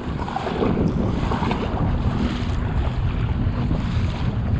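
Wind buffeting the microphone and water rushing and slapping around a kayak hull as it runs under its electric trolling motor through swells, with a faint steady motor hum from about halfway.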